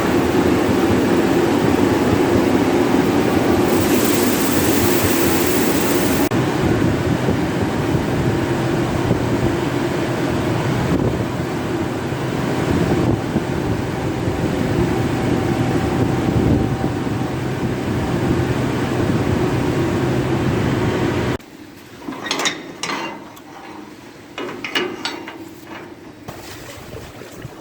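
Tractor engine running steadily while working the feeder wagon, then cutting out abruptly about 21 seconds in. A few scattered short knocks and rustles follow.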